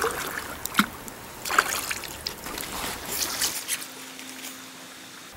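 Trout stream water running and splashing, with scattered short splashes and knocks.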